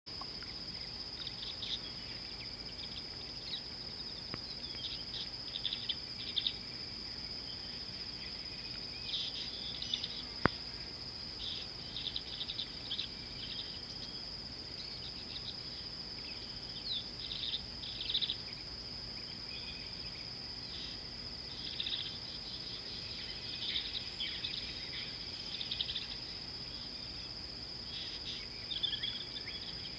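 A steady, high insect drone, with short bird chirps scattered throughout and a single sharp click about ten and a half seconds in.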